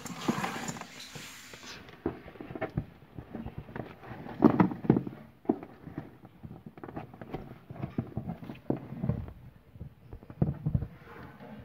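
Irregular knocks, taps and scrapes as a plastic bulb holder and its twisted wire are handled against the walls of a cardboard box, a few knocks heavier than the rest.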